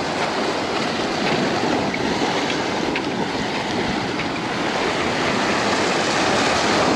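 Surf washing against the rocks of a jetty: a steady rush of small waves.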